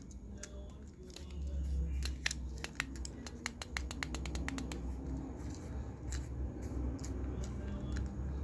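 Plastic fidget cube being clicked by hand: irregular sharp clicks, with a quick run of many clicks in the middle, over a low hum.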